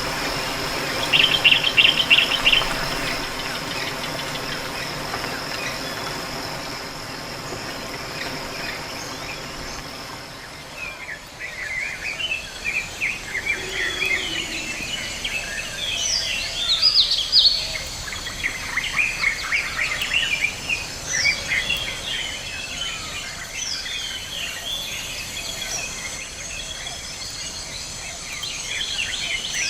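A steady mechanical hum runs for the first ten seconds or so, with a short flurry of chirps about a second in. The hum then fades out and gives way to a dense chorus of bird chirps and calls, like a jungle ambience.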